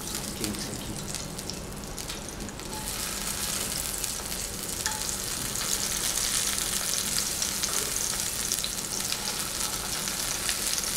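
Grilled zucchini slices sizzling in hot olive oil as they are laid one by one into a frying pan, the sizzle growing louder about three seconds in as more slices go in.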